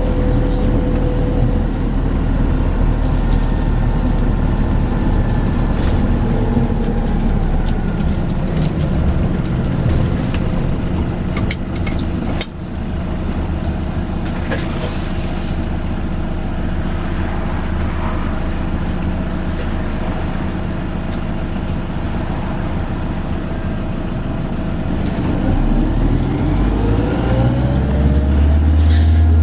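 Volvo B5LH hybrid bus running: its drive tone falls as it slows early on, a few sharp knocks come around the middle, and near the end it pulls away with a rising whine, growing louder.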